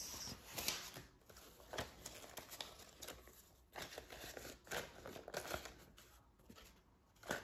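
Paper banknotes rustling and crinkling as a handful of bills is taken out and sorted by hand, in short irregular bursts.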